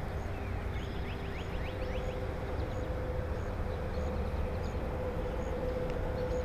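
Steady outdoor background rumble with a faint steady hum, and a quick run of short chirps about two seconds in.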